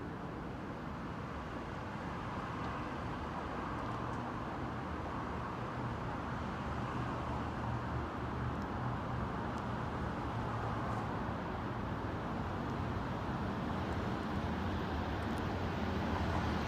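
Low, steady drone of approaching diesel locomotives, slowly growing louder.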